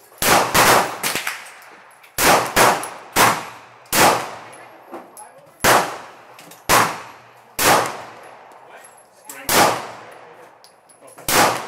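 Pistol shots from a 9mm Glock: about a dozen fired at an uneven pace. A quick string of four comes at the start, then single shots roughly every second, each ringing out with a short echo.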